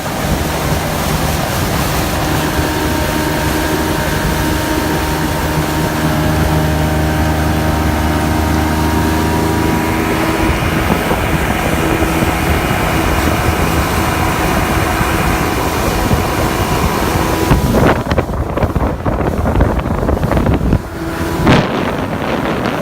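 Motorboat engine running steadily under heavy wind noise on the microphone, with several sharp knocks in the last few seconds.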